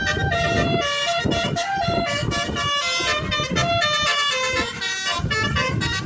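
Bus 'telolet basuri' musical air horn playing a tune, its notes stepping to new pitches several times a second, with a low rumble underneath.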